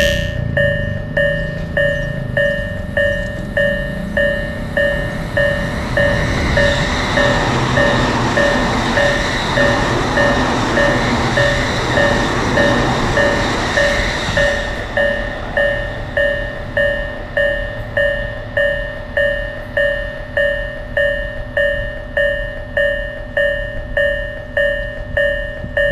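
Japanese railroad crossing warning bell ringing in its steady, evenly repeated "kan-kan" strikes while a train passes. The train's rumble and rail noise stop about halfway through, leaving the bell ringing on its own.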